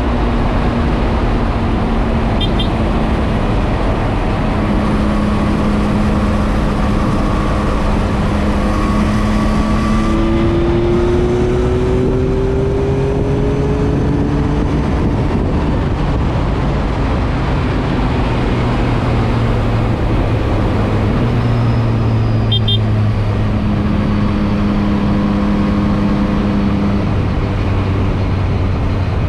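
Yamaha MT-09 three-cylinder engine running steadily at road speed under heavy wind rush. Its note rises slowly for a few seconds near the middle.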